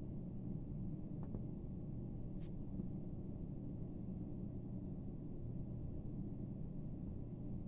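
Domestic cat purring as a steady low rumble while it kneads a fluffy chair cushion, with two faint ticks early on.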